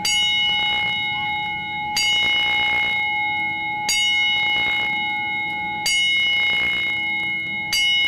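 Wrestling ring bell struck five times, about two seconds apart, each strike ringing on until the next: part of a ten-bell salute.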